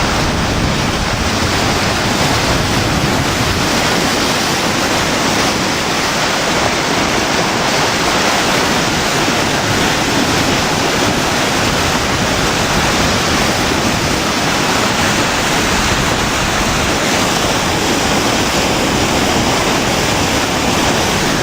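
Maumee River in flood pouring over Providence Dam: a loud, steady rush of falling water that does not change.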